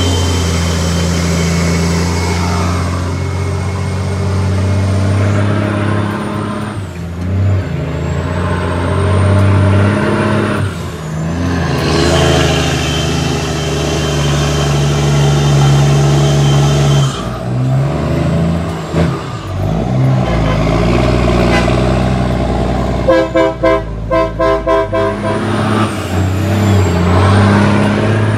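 Cummins ISX inline-six diesel in an International ProStar truck running, its pitch dipping and climbing again several times as engine speed changes, in keeping with shifts through an 18-speed gearbox. Near the end there is a couple of seconds of rapid pulsing tones.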